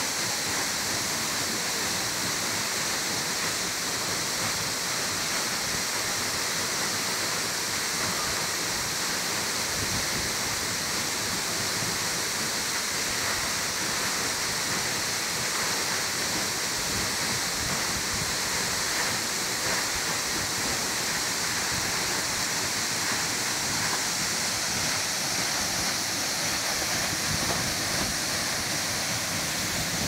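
Waterfall pouring down a rock face, heard close to the falling water: a steady, even rush of water and spray.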